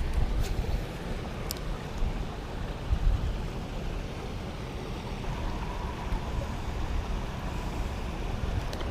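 Steady rush of water flowing through a spillway, with a low rumble of wind on the microphone.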